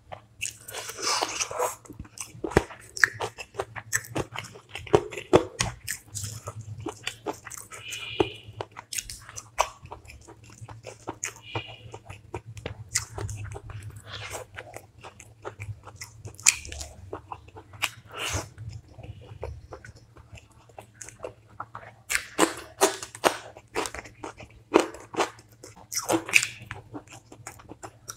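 A person chewing and biting a meal of chicken curry and rice close to the microphone, with many sharp crunches and mouth clicks that come thicker and louder near the end.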